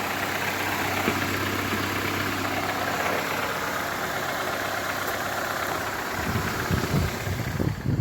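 Honda four-cylinder engine idling steadily, firing on a coil-on-plug ignition run through a standalone harness. Irregular low thumps come in near the end.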